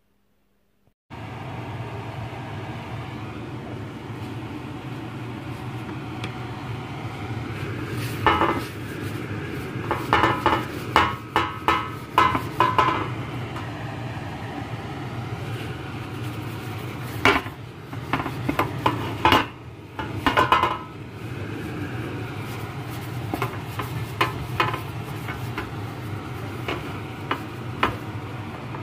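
Metal baking tray being handled and greased with butter: bunches of knocks and clinks against the tray. Under them runs a steady low hum.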